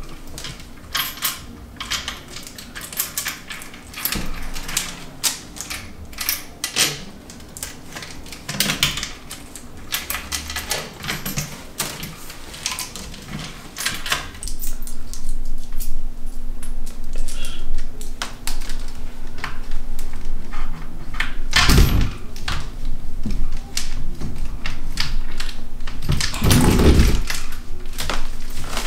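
Wicker-wrapped metal frame pieces of an egg swing chair clicking, clinking and knocking together as they are fitted and fastened by hand, in quick irregular taps. Two heavier thumps come in the second half.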